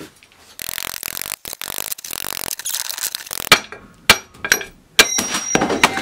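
Claw hammer striking the rusty cast-iron base of a drill press, about six sharp metallic blows in the last two and a half seconds, one with a brief ring, knocking loose a rust-seized part soaked in penetrating oil. Before the blows, a few seconds of rough rushing noise.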